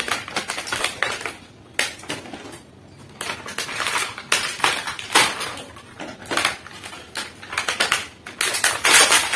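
Clear plastic toy packaging crinkling and crackling in irregular bursts as it is handled and pulled open, loudest near the end.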